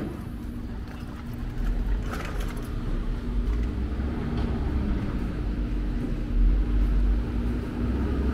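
Street traffic: motor vehicle engines running with a steady low rumble and hum, growing a little louder in the second half, with a brief clatter about two seconds in.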